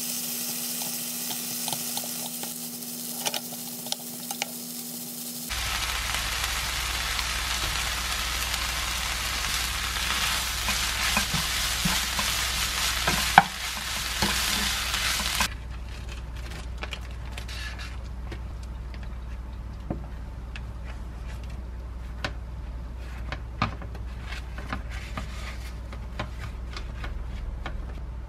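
Dried radish greens (siraegi) sizzling in an oiled nonstick frying pan as a spatula stirs them with soy sauce: the last stir-fry of the dish. About fifteen seconds in the sizzling stops, and scattered light taps and clicks follow.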